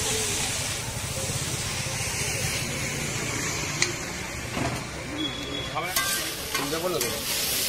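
Noodles sizzling on a large flat street-vendor griddle as they are tossed and stirred, a steady frying hiss. Near the end a metal spatula clatters and scrapes on the griddle in a quick run of clicks.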